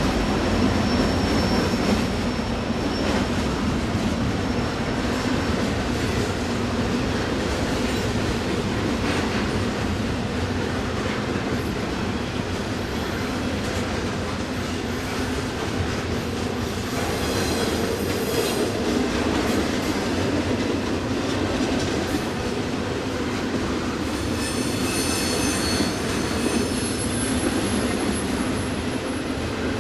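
Long freight train of stacked container cars rolling past: steady wheel-on-rail rumble and clatter, with high-pitched wheel squeal at the start, again about two-thirds of the way through, and louder near the end.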